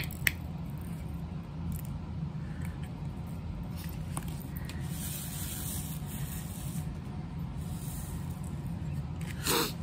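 Soft rustling of the clear plastic protective film on a diamond painting canvas as it is handled, over a steady low hum, with a light click just after the start and a short louder rustle near the end.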